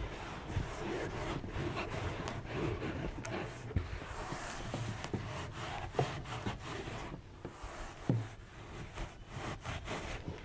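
Continuous rubbing and scraping of hands working over the body, broken by several sharp cracks, about one every two seconds, like the back and joint cracks of a chiropractic adjustment.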